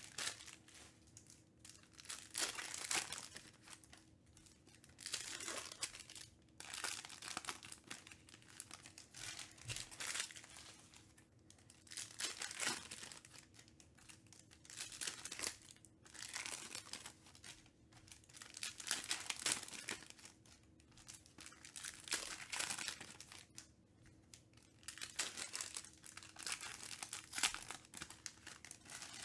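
Foil wrappers of Panini Select basketball trading-card packs crinkling and tearing in irregular bursts as the packs are ripped open.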